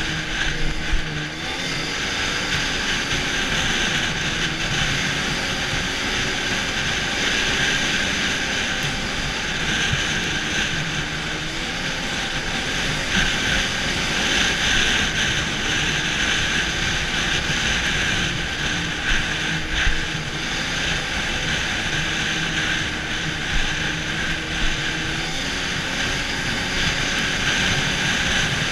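Arctic Cat snowmobile riding along a trail at a steady cruise: its engine runs with a pitch that rises and falls slightly, under a steady rushing hiss of wind and track, with a few brief knocks.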